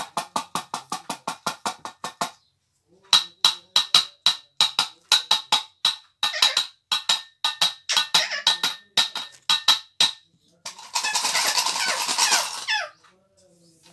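Fast, regular tapping on a metal tin and its lid, about five taps a second, then after a short pause slower taps at two to three a second, each ringing briefly at the same high pitch. Near the end, about two seconds of dense metallic rattling and scraping.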